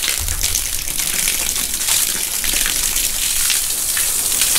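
Water gushing steadily from the end of a garden hose and splashing onto the floor, as a freeze-up blockage of ice and slush is blown out of the hose.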